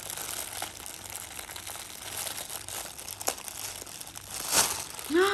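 Plastic packaging crinkling and rustling as a toy package is handled and opened, with a louder rustle about four and a half seconds in. A short vocal sound comes at the very end.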